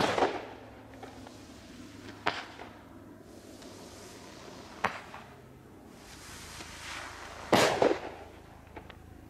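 Meteor Mayhem firework rockets bursting in the air: a series of sharp bangs, the loudest at the start and about seven and a half seconds in, each followed by a quick run of smaller pops, with two lighter bangs in between.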